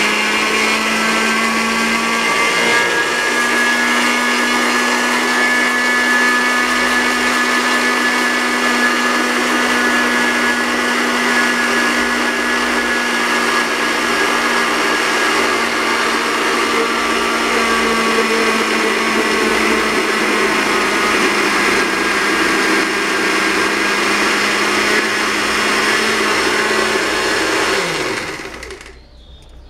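Countertop blender motor running steadily, emulsifying egg, vinegar, garlic and onion into mayonnaise as oil is poured in a thin stream. Its pitch drops slightly a little past halfway, and near the end it is switched off and winds down to a stop.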